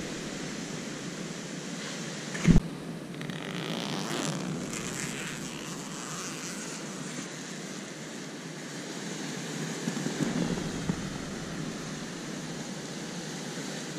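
Steady outdoor wind and sea-surf noise, with a single sharp thump about two and a half seconds in.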